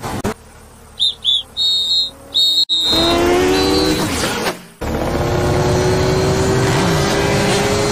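Cartoon insect sound effects: a few short, high chirps, then a loud, race-car-like engine buzz that revs up as the insects take off. About five seconds in it settles into a steady engine-like drone as they fly.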